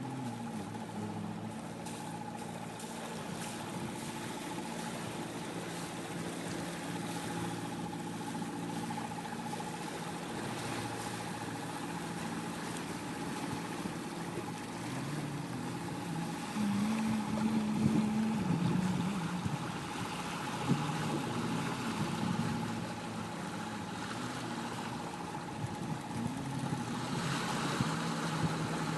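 45-foot catamaran under way at sea: a steady mechanical hum with a constant high-pitched whine over a wash of wind and water, swelling briefly a little past the middle.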